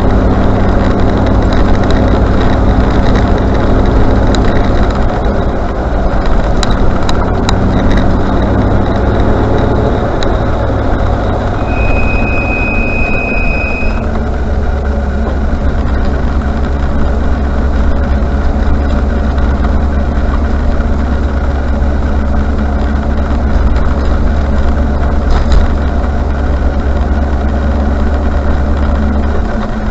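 Range Rover Classic driving with steady engine and road noise. About twelve seconds in, the brakes give one high, steady squeal lasting about two seconds, with a few sharp clicks elsewhere.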